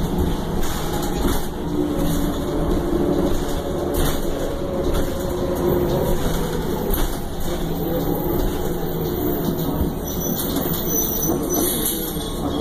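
Interior noise of a 2009 Orion VII transit bus in service: the engine and drivetrain running steadily, with road noise and light rattles from the cabin fittings.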